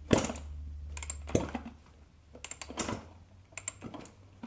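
Freshly rebuilt 1984 Kawasaki KX125 two-stroke engine being turned over on the kick-starter, giving a run of irregular clicks and knocks. The spark plug is loose, so the engine holds less compression than it should.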